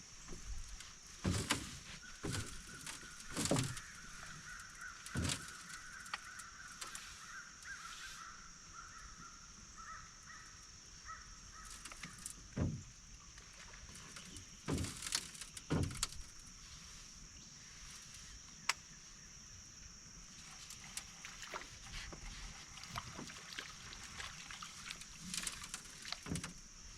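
Outdoor boat ambience: a steady high-pitched drone throughout, a drawn-out wavering call from about two seconds in to about twelve seconds in, and scattered knocks and bumps.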